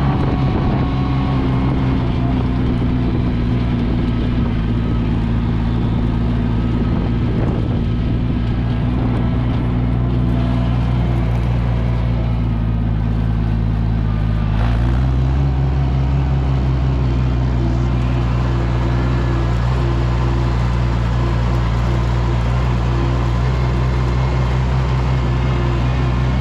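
Gasoline engine of an Oliver 880 tractor running steadily while driving, with a small change in engine speed about halfway through.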